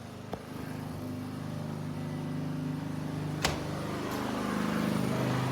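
An engine running steadily with a low hum that slowly grows louder, with a sharp click about three and a half seconds in.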